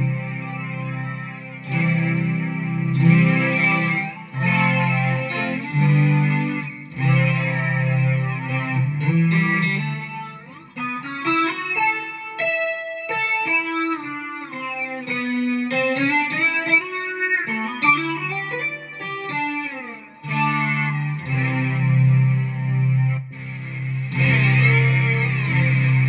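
Electric guitar played through a BOSS SY-200 synthesizer effects pedal: synth-toned held chords, then a single-note line with slides about halfway through, then chords again with a sweeping tone near the end.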